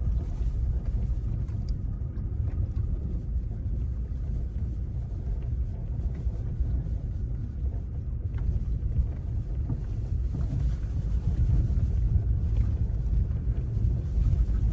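Wind buffeting the microphone: a steady low rumble with almost nothing higher up.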